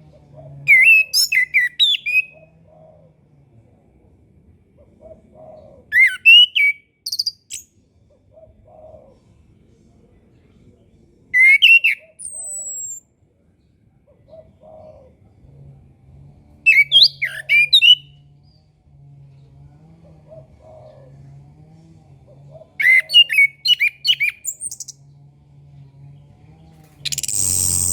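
Orange-headed thrush singing: five short phrases of quick, gliding whistled notes, each a second or two long and several seconds apart. A thin falling whistle follows the third phrase, and a short loud hiss comes near the end.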